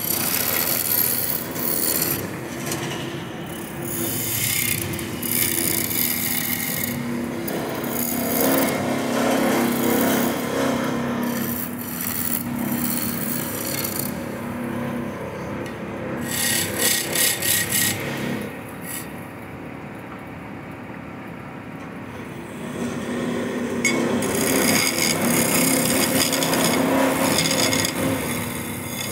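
Wood lathe running, with a turning tool scraping and cutting the spinning wood in a hissing rasp over the steady motor hum. The scraping pulses briefly a little past halfway, eases off for a few seconds so mostly the hum is left, then comes back strongly near the end.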